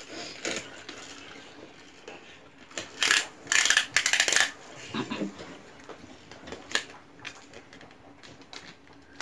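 Handling noise: two short bursts of rattling, crinkling clatter about three to four and a half seconds in, then a few lighter knocks.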